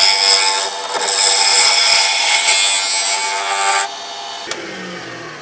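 Lathe chisel cutting a spinning construction-grade 2x2 on a wood lathe: a loud steady shearing hiss over the lathe's hum, which stops just before four seconds in. About a second later the lathe is switched off and its motor winds down with a falling hum.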